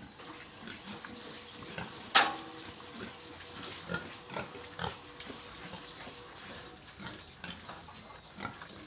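F1 Large White × Landrace piglets grunting and eating at a feed trough, with scattered clicks and knocks and one sharp knock about two seconds in.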